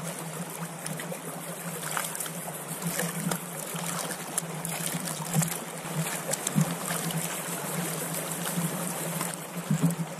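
A fast-flowing creek rushing steadily, with water and gravel sloshing and splashing in a plastic gold pan as it is swirled and washed in the stream.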